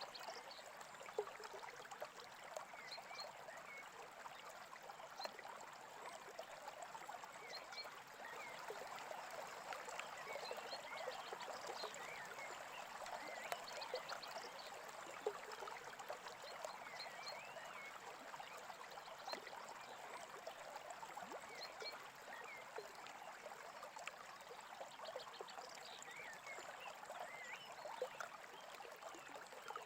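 Small stream trickling and babbling steadily, with birds chirping briefly here and there.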